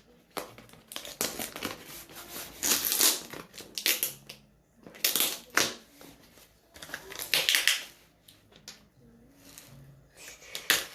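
A tightly sealed package being worked open by hand: irregular bursts of crinkling and tearing of packaging, several times with short pauses between.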